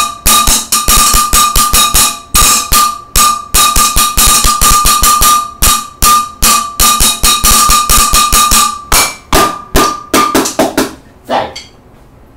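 Fast freestyle drumming with wooden drumsticks on a stainless-steel cooking pot, several strokes a second, with the pot ringing a steady high note under the beats. The beating thins out and stops about eleven seconds in.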